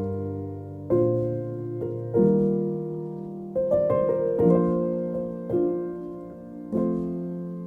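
Slow background piano music: chords struck about every second and left to ring out.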